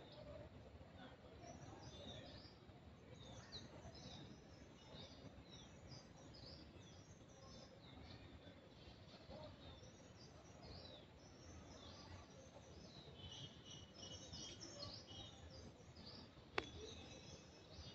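Quiet forest ambience: many small birds chirping in quick, high notes over a low steady hiss, with a single sharp click near the end.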